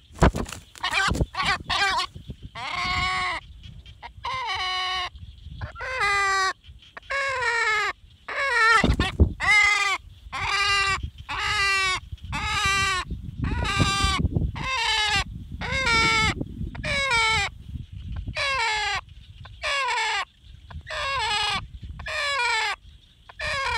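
Male watercock calling over and over, about one short call a second, each call dropping in pitch. Sharp clicks near the start and low rustling between some calls come from its wings flapping while it is held.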